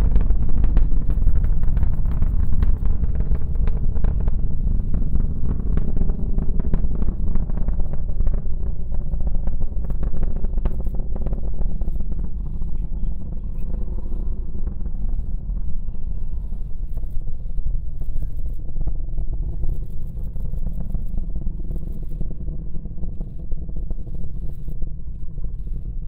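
Falcon Heavy rocket's 27 Merlin engines heard from miles away as a deep, crackling rumble. The crackle thins over the first half and the rumble slowly fades as the rocket climbs away.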